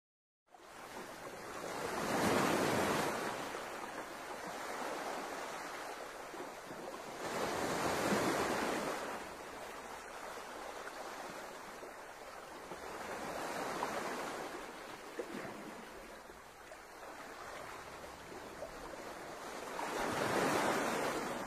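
Sea waves washing in slow, even swells that build and fall back about every six seconds.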